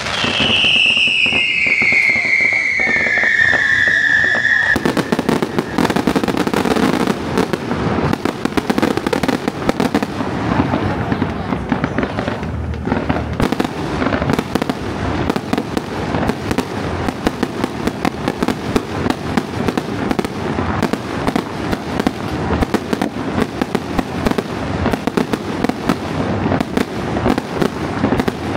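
A whistle falling steadily in pitch for the first few seconds, then fireworks and firecrackers going off in a dense, continuous crackling barrage of rapid bangs.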